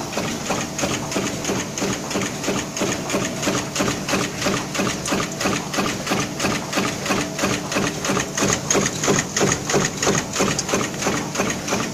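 High-speed punch press with a progressive die stamping metal buttons from strip fed by a roller feeder, running continuously in a rapid, even rhythm of stamping strokes.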